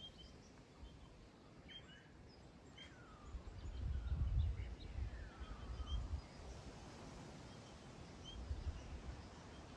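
Faint birdsong in the bush: scattered short high chirps and a few descending whistles, over a low rumble that comes and goes.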